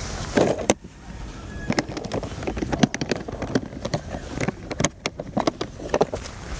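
Irregular clicks and knocks of camping gear being handled during tent setup, over a low steady rumble.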